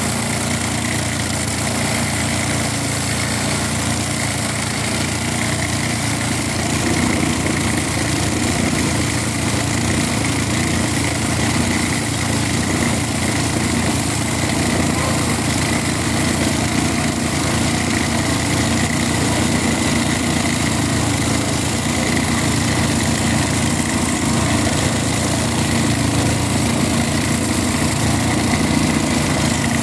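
Portable petrol-engined abrasive rail cutter running flat out, its disc grinding steadily through a steel rail: continuous engine noise with a high grinding whine over it, getting a little louder about seven seconds in.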